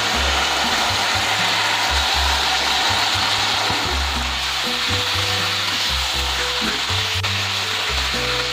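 Steady frying sizzle in a wok as boiled basmati rice is tipped onto chicken and vegetables in sauce and stirred through.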